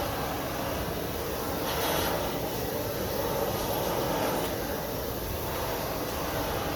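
Shrink-wrap heat gun running, a steady rushing noise, as the plastic roof wrap is heated to shrink it tight.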